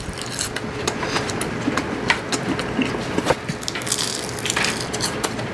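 Crunching and chewing of baklava, its flaky phyllo layers giving many quick sharp crackles.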